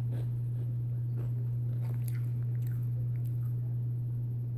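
A person chewing crunchy Takis Fuego rolled tortilla chips, with a few scattered crunches. Under it runs a steady low hum, the loudest thing heard.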